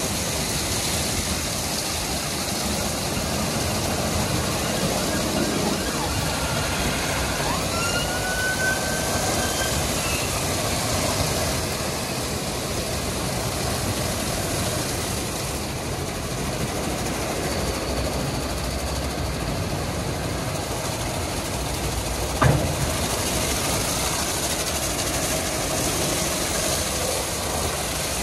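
WashTec EasyWash rollover car wash at work, its green foam brushes spinning and washing over the car as the gantry drives along its rails, making a steady wash of noise. A faint gliding tone comes through about eight to ten seconds in, and a single sharp knock sounds about twenty-two seconds in.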